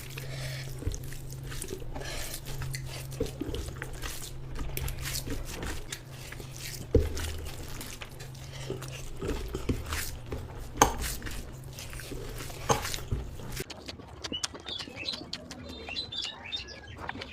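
Close-miked eating: chewing and mouth smacking through a run of small clicks, with three sharper, louder clicks in the second half.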